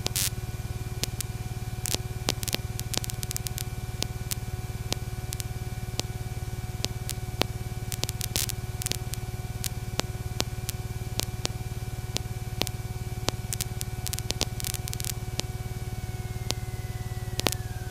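Light aircraft piston engine and propeller droning steadily in the cockpit on final approach, with crackling static clicks throughout. Near the end one tone slides down in pitch.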